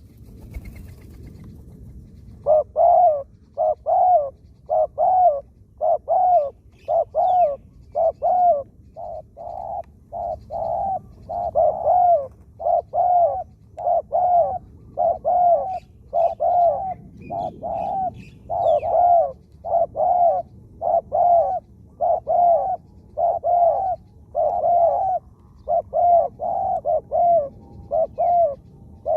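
Spotted dove cooing over and over in a rapid run of short, low notes, often in pairs at about two a second. The calling starts a couple of seconds in and keeps going without a break.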